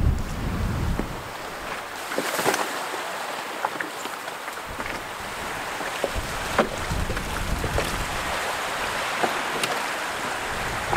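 Small wind-driven waves splashing and lapping at the shore and against the canoe, many short splashes over a steady wash of water and wind. Wind buffets the microphone for about the first second.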